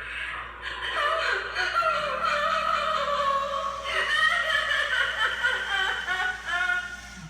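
Halloween animatronic's recorded soundtrack: a girl's high-pitched giggling and laughter over eerie music, fading away near the end.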